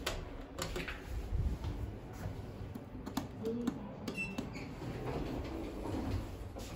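Otis/Sigma rectangular push buttons on a lift car's operating panel being pressed: several short clicks, and about four seconds in a short electronic beep as a floor call registers, over a low rumble.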